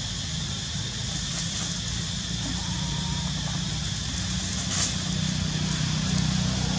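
A steady low rumble like a motor running, with a steady high-pitched hum above it and one brief sharp rustle or tap about five seconds in.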